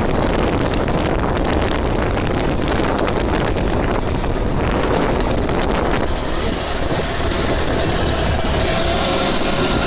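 Steady engine rumble with wind buffeting the microphone; near the end a steady motor whine comes in.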